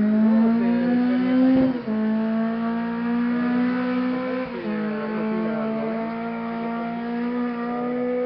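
Rally car engine accelerating hard away up a hill. Its pitch climbs and drops twice as it shifts up, about two seconds in and again about four and a half seconds in, then it holds high revs.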